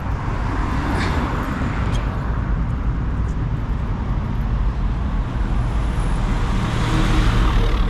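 Street traffic: motor vehicles pass close by, one about a second in and another swelling near the end, over a steady low rumble.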